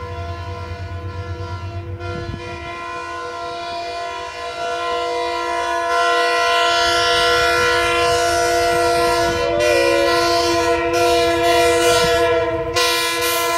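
Horn of an approaching diesel passenger train, held as one long steady chord that gets louder about six seconds in.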